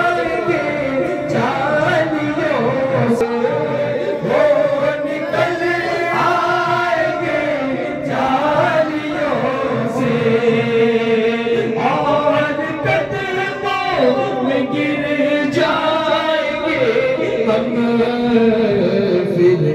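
Men singing an Urdu devotional song (a naat or manqabat) into microphones without any instruments, in a continuous chant-like melody.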